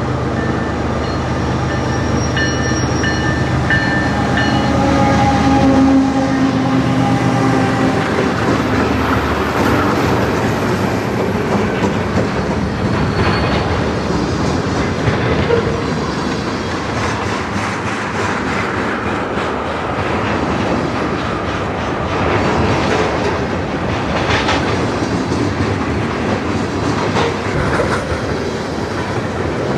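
Diesel freight locomotive passing with a steady engine drone that fades after about eight seconds, followed by freight cars rolling by, their wheels clicking over rail joints.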